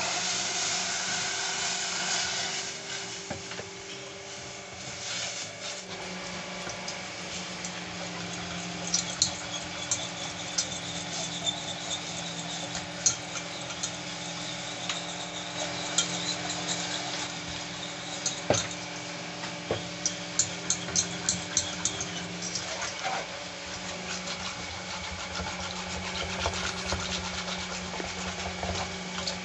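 Water poured from a jug into flour in a metal saucepan, then a wire whisk beating the flour-and-water slurry, clicking against the pan in quick runs of ticks over a steady low hum.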